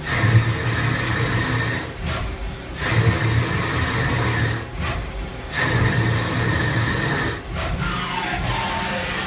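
CNC lathe cutting a thread on a steel shaft: the cut is repeated in stretches of about two seconds, with short breaks as the tool pulls back between passes. Near the end the spindle slows down with a falling whine.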